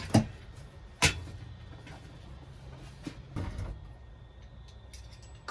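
Knocks and clatter of kitchen things being put away: two sharp knocks about a second apart, then a few softer knocks and small clicks.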